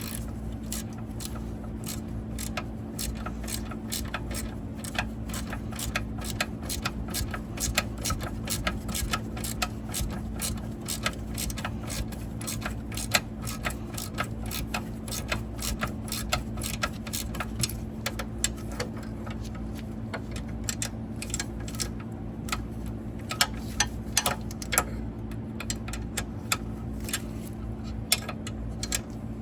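Quarter-inch drive ratchet clicking in quick runs as the seat shock's nylon lock nut and bolts are tightened, over a steady low hum.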